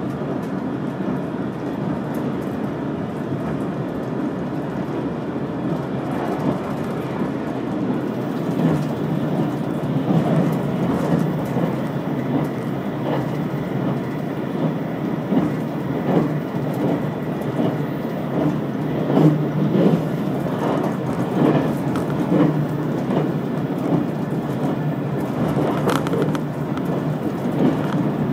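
Limited express electric train running on the Yosan Line, heard from inside the passenger car: a steady rumble of wheels on rail. From about a third of the way in, the clacks of the wheels over rail joints come more often and a little louder.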